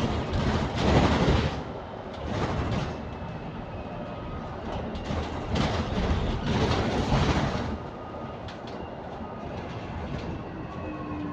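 Inside a moving bus: the bus's engine and road rumble, with rattles, swelling about a second in, again around two and a half seconds and from about five to seven and a half seconds, then easing.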